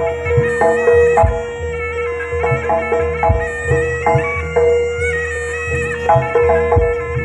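Live East Javanese jaranan gamelan music: a reedy shawm (slompret) plays a wavering melody over a steady held tone, with repeated struck metal gamelan notes and regular low drum beats.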